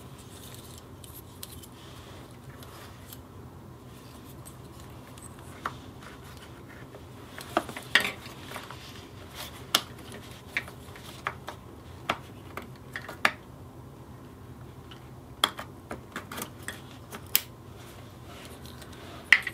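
Plastic wiring-harness connectors and loose wires being handled and plugged together: scattered sharp clicks and rustles at irregular intervals, the loudest about eight seconds in, over a low steady hum.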